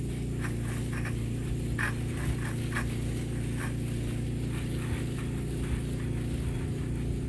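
A steady low engine-like hum, with a scatter of short high chirps over it, most of them in the first few seconds.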